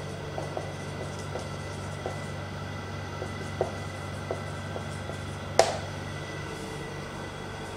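Marker pen writing on a whiteboard: small scattered taps and scratches of the tip, with one sharper tap about five and a half seconds in, over a steady background hum.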